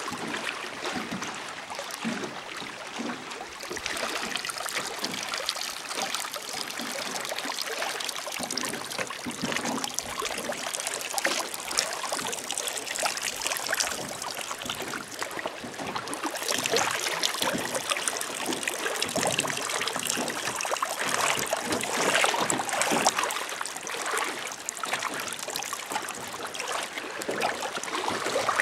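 A person urinating into lake water: a steady stream of pee splashing and trickling into the surface.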